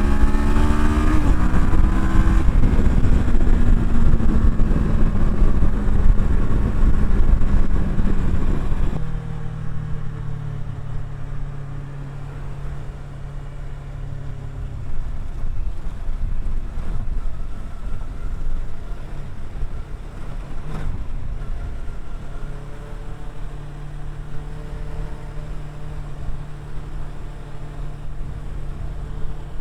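Kawasaki Versys 650's parallel-twin engine under way, its pitch rising over the first couple of seconds, with loud wind noise. About nine seconds in, the wind noise drops away suddenly and the engine runs on at low, steady revs.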